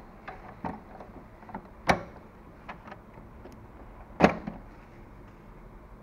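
Light plastic clicks and knocks as the cartridge bay of an HP DeskJet 2130 printer is handled, with two sharp knocks, about two seconds and about four seconds in; the later one is the front cartridge access door being pushed shut.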